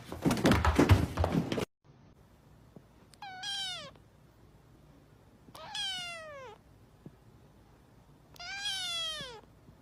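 A kitten meowing three times, a few seconds apart, each meow about a second long and falling in pitch. Before that, loud noise with knocks cuts off abruptly under two seconds in.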